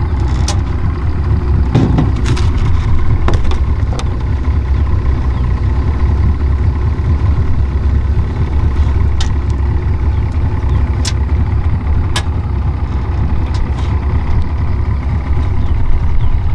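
Boat's outboard motor running steadily, with a few sharp knocks scattered through.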